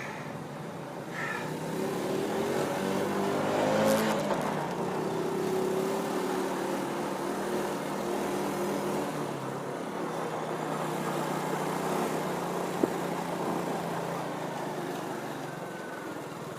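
Old Honda's small engine running under way, its pitch rising as it speeds up over the first few seconds, then holding fairly steady. There is a single sharp click near the end.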